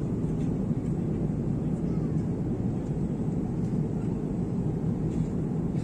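Jet airliner cabin noise in flight: a steady low rumble with no change in level.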